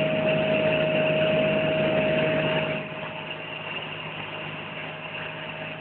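Single piston engine and propeller of a Piper PA-32, heard from inside the cabin as a steady drone with a thin held whine. It drops noticeably in loudness about three seconds in and stays lower.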